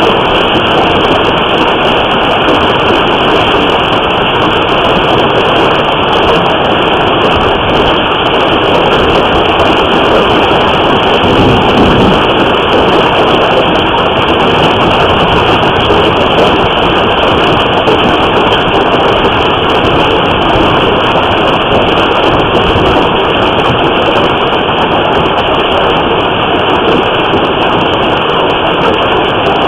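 Hailstorm: a dense, unbroken roar of hail and rain pounding on a house and the vehicles outside it, heard through a surveillance camera's microphone.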